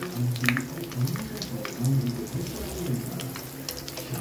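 Breaded chicken cheese balls frying in hot oil, with a steady sizzle and many small crackles. A low hum comes and goes underneath.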